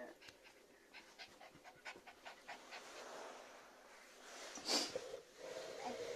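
Pomeranian panting quickly, about four or five short breaths a second. About three-quarters of the way through comes a brief, louder burst of noise, and near the end a baby's voice.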